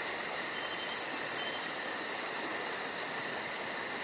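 Steady hiss with a high, fast chirping pulse, about five pulses a second, like insects at night; the chirping pauses for about a second past the middle.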